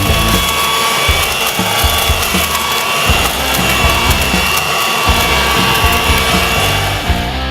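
Electric garden blower-vacuum running steadily: a motor whine with a rush of air, under background music with a stepping bass line.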